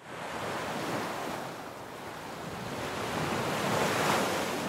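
Small sea waves breaking and washing up a sandy shore: a steady wash of surf that swells louder near the end.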